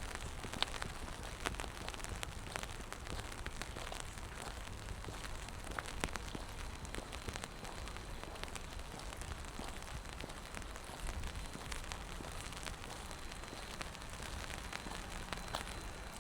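Steady rain falling on wet pavement: an even hiss with many small, sharp drop ticks scattered through it.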